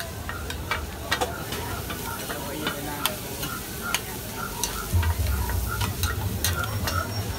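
Food sizzling on a hot flat griddle while metal spatulas clack and scrape against it as noodles are stir-fried. A low hum comes in about five seconds in.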